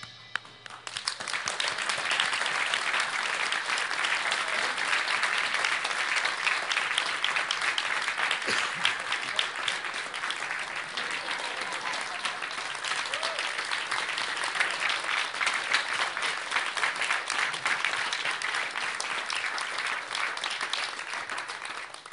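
Audience applauding steadily, starting about a second in and cutting off sharply near the end.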